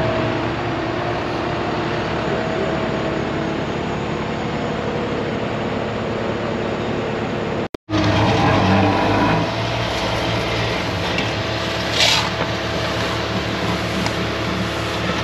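Heavy diesel paving equipment running steadily: the engine of the asphalt paver with a dump truck at its hopper, then, after an abrupt cut about halfway, the paver's engine close by with a deeper, louder hum. A short scraping burst comes about twelve seconds in.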